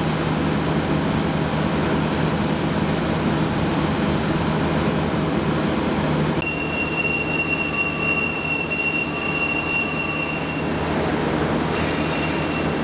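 Train running along the track with a steady rumble. About six and a half seconds in, a high, steady wheel squeal sets in. It breaks off briefly about a second before the end and then returns.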